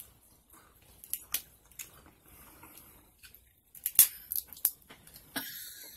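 King crab leg shells cracked and snapped apart by hand, a scatter of sharp cracks and clicks, thickest and loudest about four seconds in. Wet mouth sounds come from crab meat being sucked out of the shell, with a short noisy stretch near the end.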